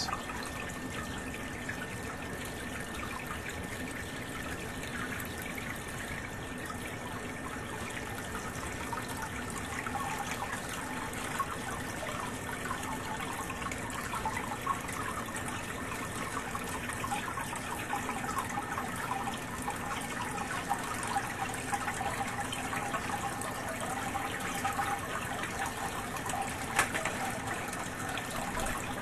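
Groundwater trickling and splashing steadily into a sump pit through small holes in the side of the pit liner, while the submersible sump pump runs and pumps the pit down. This is subsurface water draining in from under the basement floor.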